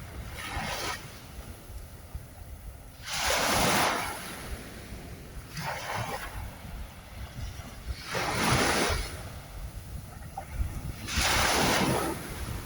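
Ocean waves breaking on a shore: a wash of surf swells and falls back about every two and a half to three seconds, some breakers clearly bigger than others.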